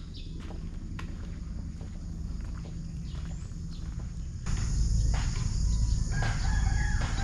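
Insects buzzing steadily from about halfway through, over a low wind rumble on the microphone. Before that there are a few scattered light ticks.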